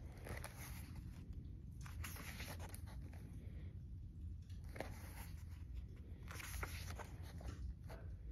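Pages of a graphic novel being turned by hand: faint paper rustles, a few separate turns, over a low room hum.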